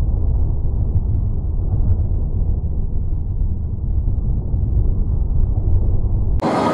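Steady, muffled low rumble of ballpark crowd ambience under a dome, with no distinct bat or glove sound. A little over six seconds in it cuts abruptly to a brighter, fuller stadium din.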